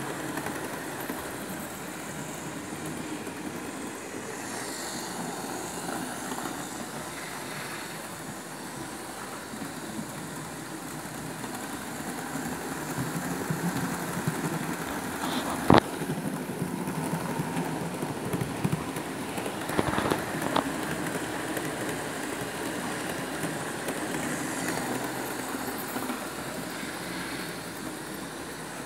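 Model trains running on a model railway layout: a steady rumble of wheels and motors on the track, with a sharp click about sixteen seconds in and a few smaller clicks around twenty seconds.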